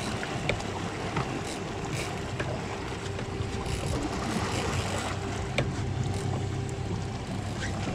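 Suzuki 300 outboard motor idling steadily under a haze of water and wind noise, with a few faint scattered clicks.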